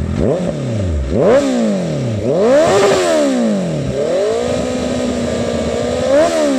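Honda CB650F inline-four engine revved through an aftermarket Claw Racing carbon silencer on the stock header with no dB killer fitted. A series of throttle blips rises and falls, the highest about three seconds in, then the revs are held steady for a second or two before one last quick blip near the end.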